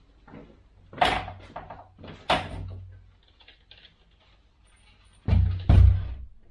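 A hotel room door knocking and thumping in its frame as a resistance-band set hooked over it is handled and pulled. There are a couple of sharp knocks in the first few seconds, then two louder, heavy thumps about half a second apart near the end.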